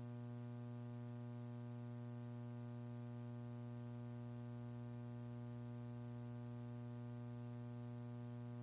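Steady electrical mains hum in the audio feed, a low buzz with a row of overtones that never changes; no rocket engine sound is heard.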